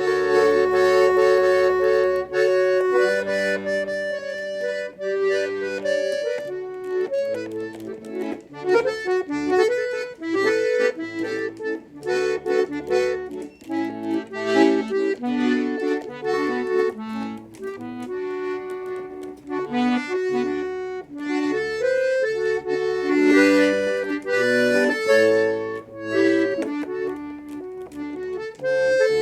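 Accordion playing a forró tune: a stepping melody over changing bass notes, with no singing.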